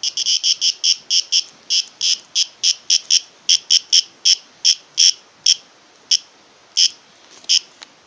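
Cicada seized by a praying mantis giving its distress call: a fast series of short, shrill squawks, about three a second, spacing out toward the end.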